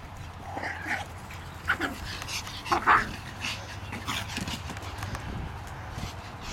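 Japanese Chin dogs at play, giving a few brief yips and whines, the loudest about two and three seconds in.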